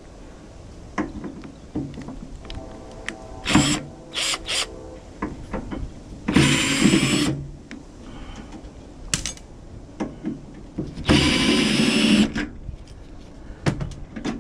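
Power drill whirring in two runs of about a second each, with clicks and metal clanks of parts being handled between them.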